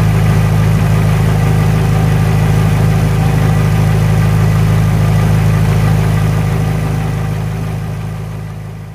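Car engine running steadily in gear, spinning a jacked-up wheel hub and vented brake disc with no load, a steady low hum. The sound fades away over the last few seconds.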